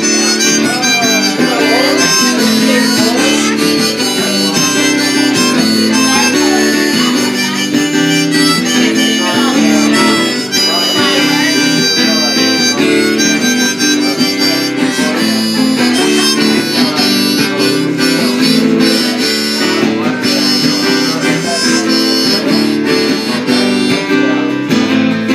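Harmonica solo over a strummed late-1970s Guild G-41 acoustic guitar.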